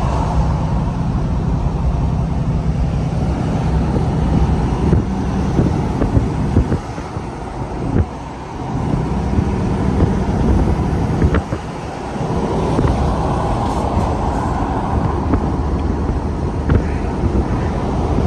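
Steady engine and road drone of a semi truck at highway speed, heard from inside the cab, easing off briefly about seven to nine seconds in and again around twelve seconds.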